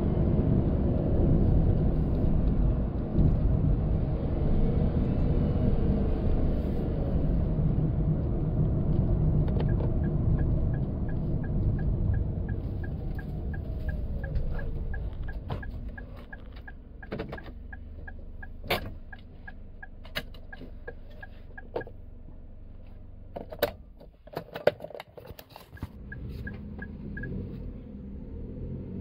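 Cabin noise inside a Daihatsu Hijet Cargo kei van with a non-turbo engine and CVT: loud engine and road noise while driving, enough to make talk between the front seats hard to hear. About halfway through, the van slows and the engine sound falls away to a quiet idle. A steady fast ticking runs through the quieter part, along with several sharp knocks.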